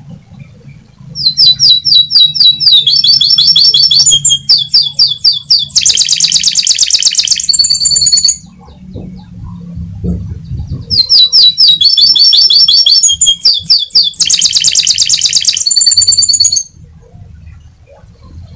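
Domestic canary singing two long song phrases, the first starting about a second in and the second after a pause of about three seconds. Each is a string of rapid, repeated high trills that switch speed and pitch from section to section, ending on a held high whistle.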